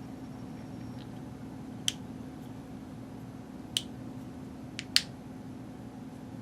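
Small sharp clicks of the router's plastic switch parts being handled and pressed into place during reassembly: single clicks about two and four seconds in, then a quick double click about five seconds in, over a steady low hum.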